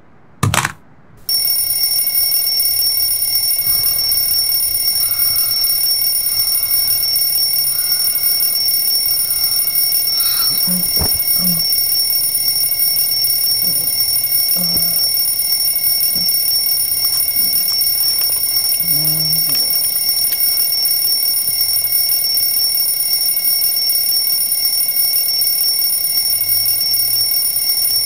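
Electronic alarm ringing continuously in a steady high-pitched tone, starting about a second in after a short burst, with a few soft knocks beneath it.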